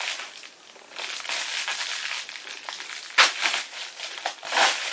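Plastic Amazon mailer bag crinkling and rustling as it is pulled open by hand, with two louder rips, one about three seconds in and one near the end.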